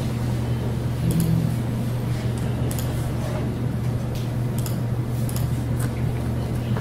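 A steady low hum, with a handful of light clicks scattered through it.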